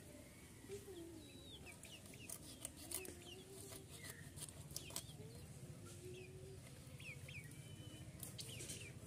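Faint clucking of hens, with small birds chirping and a few sharp clicks.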